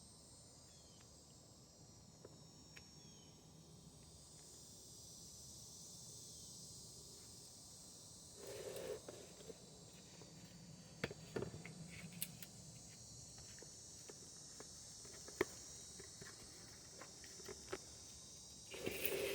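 Steady high-pitched chirring of crickets, with sparse sharp clicks and light taps of hand tools working a retaining clip on a transmission shaft, mostly in the second half.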